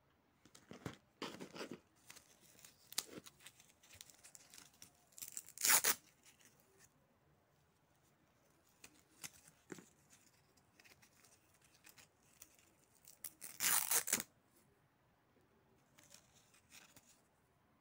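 Hook-and-loop (Velcro) fastener on a black camera mounting strap being ripped apart several times in short rasping tears. The two loudest come about five and a half and fourteen seconds in, with lighter rustling of the strap between.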